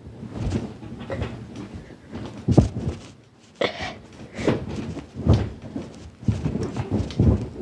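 Irregular dull bumps and rustling, about one a second: a phone's microphone being handled and knocked as it is moved about.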